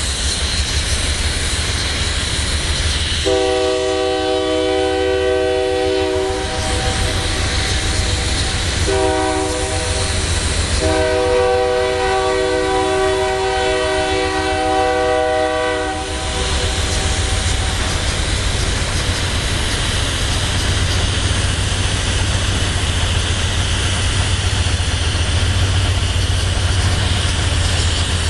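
Freight cars rolling past with a steady low rumble. A locomotive air horn sounds three blasts, long, short and long, from about three seconds in until about sixteen seconds in.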